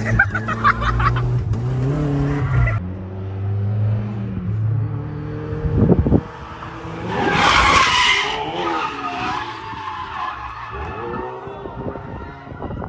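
Nissan 240SX drift car's engine revving up and down as it drifts, with a sharp loud burst about six seconds in and a long tyre squeal from about seven to nine seconds in.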